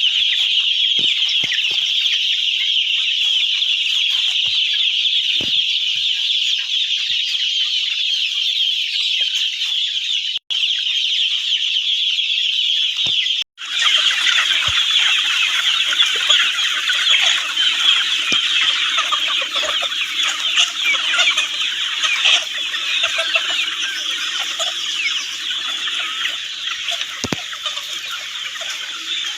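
A large flock of chickens clucking and calling all at once, a dense, continuous chatter. The sound drops out for an instant twice, about a third of the way in and near the middle.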